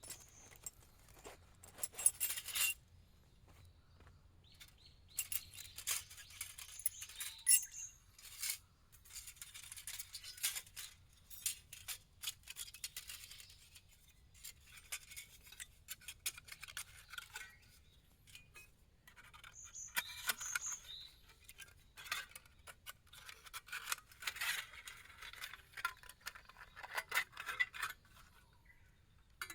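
Scattered light clinks, clicks, scrapes and rustles of small objects being handled, in irregular clusters with short pauses between them.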